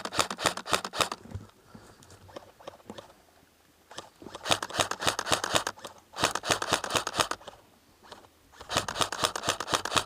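Airsoft electric rifle, a KWA ERG, firing on full auto in rapid bursts of clicks: one burst stopping about a second in, then three more short bursts with brief pauses between.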